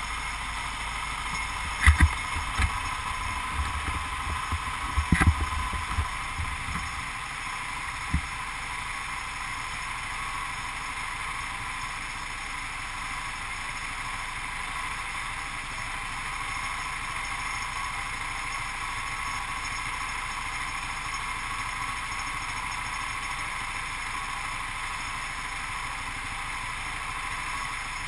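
Go-kart engine running at a steady pitch, with wind noise on the microphone. Several low thumps come in the first eight seconds.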